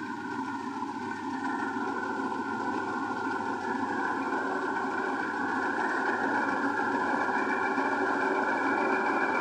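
Rice combine harvester running: a steady engine and machinery drone with a few high whining tones, growing gradually louder.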